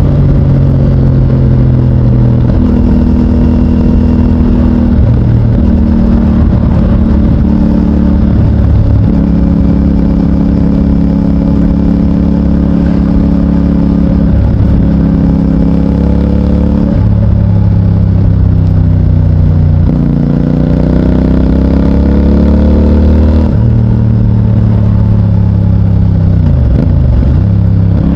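2024 CFMOTO 450NK's parallel-twin engine running through its stock exhaust under riding load, loud throughout. The engine note climbs and steps between gears several times, with one long rising pull about two-thirds through and a quick dip and recovery near the end.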